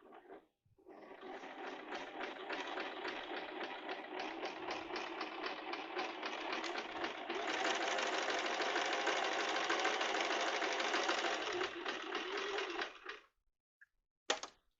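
Electric domestic sewing machine sewing a straight stitch. It starts about a second in at a moderate speed with distinct, regular stitch beats, speeds up and gets louder about halfway through, then stops near the end, followed by a couple of short clicks.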